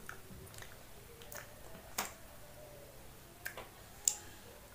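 Quiet eating sounds of a child chewing appe and picking at them with her fingers: a handful of sharp clicks and smacks, the loudest about two seconds in and another just after four seconds.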